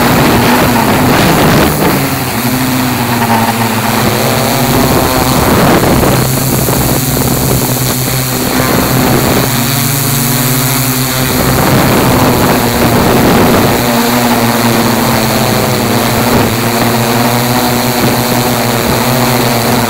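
Tarot 680Pro hexacopter's six electric motors and propellers humming steadily in flight, heard from on board, the pitch wavering up and down as the throttle changes. Gusty wind rushes over the microphone.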